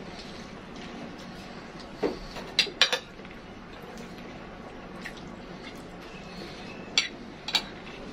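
Metal spoons clinking and scraping on plates of food as two people eat: a few sharp clinks about two seconds in, one around five seconds, and another pair near the end, over a low steady room hum.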